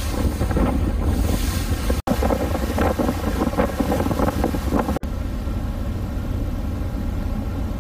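Wind buffeting the microphone on the deck of a moving car ferry, over the rush of water along the hull. The sound cuts out for an instant twice, about two and five seconds in.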